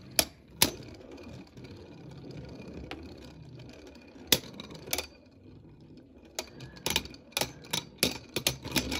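Two Beyblade Burst tops, Glyph Dragon and Zone Luminor, whirring as they spin in a plastic stadium and clacking together in sharp hits. There are a few hits near the start, then a quick run of them over the last few seconds.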